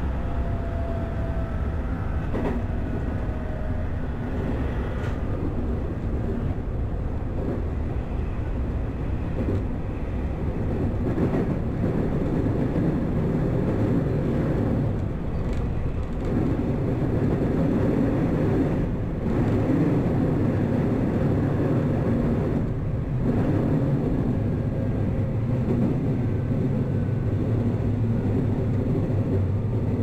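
Electric commuter train running, heard from inside at the front of the train: a steady rumble of wheels on the rails with a few sharp clacks, and a faint falling motor whine in the first few seconds.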